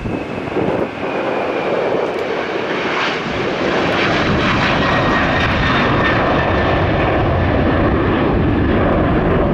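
Jet airliner engines, loud, growing louder over the first few seconds and then holding steady, with a thin high whine in the second half.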